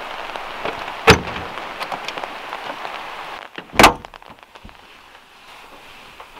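Steady rain, then the push-button latch of a classic Volkswagen Beetle's door clicks open about a second in. The door slams shut near the four-second mark, and after that the rain is heard muffled from inside the car.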